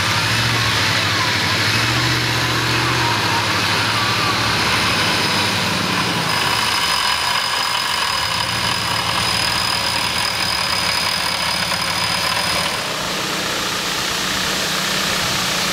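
Off-road vehicle's engine running at low revs, its pitch shifting up and down a few times, over a steady hiss.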